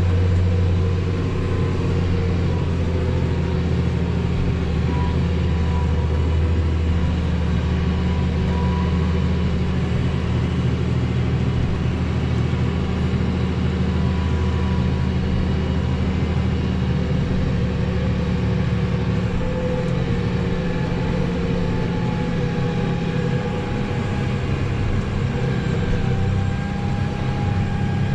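Farm tractor's diesel engine running steadily, a continuous low drone whose tone shifts slightly about twenty seconds in.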